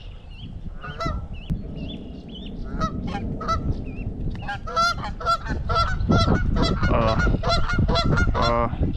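Geese honking repeatedly, sparse calls at first and then a rapid, overlapping volley from about halfway in. This is agitated calling as a swan comes in on them.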